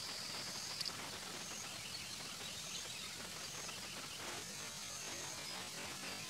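Rural outdoor ambience: a steady background hiss with short, high-pitched chirps recurring every second or so.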